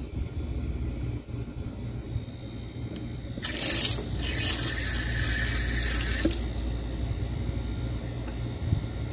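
Water gushing from an outdoor wall tap: a short spurt about three and a half seconds in, then about two seconds of flow that stops abruptly, over a steady low rumble.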